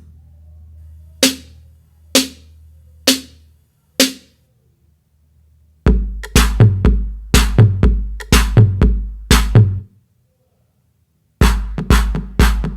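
Electronic drum-machine beat. After the full mix drops out, four single crisp hits come about a second apart, then a heavy kick-drum and bass pattern enters around six seconds in, stops near ten seconds, and comes back about a second and a half later.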